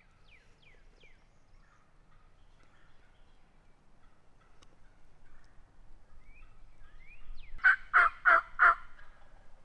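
Wild turkey gobbler gobbling once near the end, a loud call of four quick rattling notes, over faint chirping songbirds.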